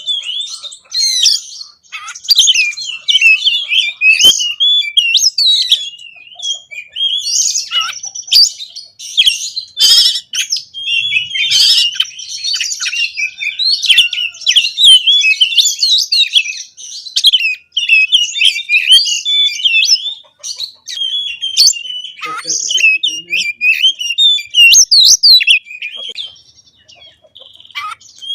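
Oriental magpie-robin (kacer) singing a loud, fast and varied song of whistles, trills and chattering phrases, with a few brief pauses, one shortly before the end.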